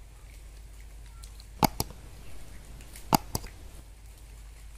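Two double mouse clicks from a subscribe-button animation's sound effect, each a quick pair of sharp clicks, the second pair about a second and a half after the first.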